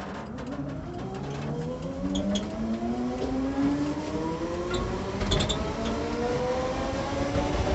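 Electric drive of a 1954 Fargo truck converted to battery power, whining and rising steadily in pitch as the truck accelerates, heard inside the cab over road rumble.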